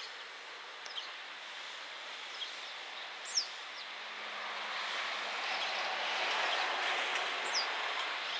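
Container freight train hauled by a JR Freight EF210 electric locomotive approaching, its running noise growing steadily louder from about halfway through as it nears. A few short high chirps, likely birds, stand out above it, the sharpest about three seconds in.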